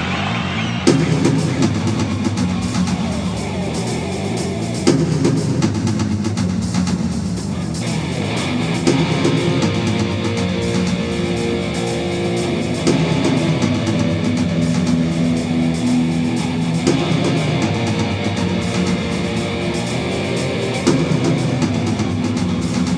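Rock music with electric guitar and drum kit, changing section about every four seconds.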